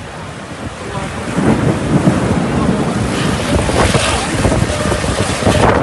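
Strong gusty wind buffeting the microphone, a rushing noise that grows louder about a second in.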